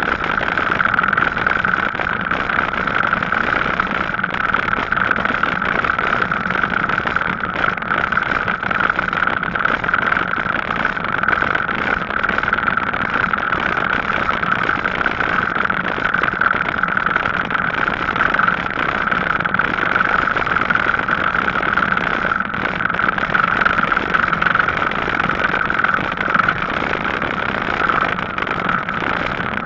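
Gazelle Paris C7 electric bicycle riding steadily on tarmac: a continuous hum of tyres and drive with a constant mid-pitched whine.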